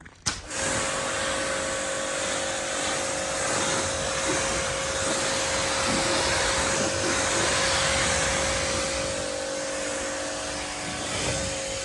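Pressure washer spraying water onto a car: a steady hiss of spray over the machine's even motor hum, starting suddenly just after a sharp click.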